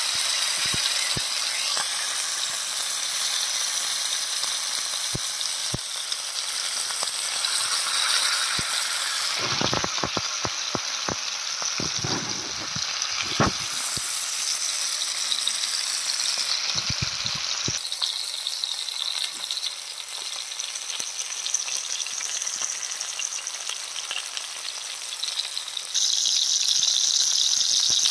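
Masala-coated whole sardines shallow-frying in oil on a cast-iron tawa: a steady sizzle with scattered crackles and pops, thickest around the middle.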